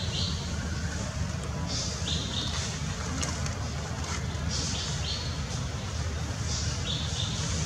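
Outdoor background: a steady low rumble under short high chirps that come in pairs every second or two.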